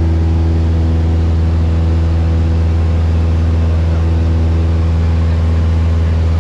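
Single-engine Cessna's piston engine and propeller droning steadily in cruise, heard inside the cabin as a loud, even, low hum.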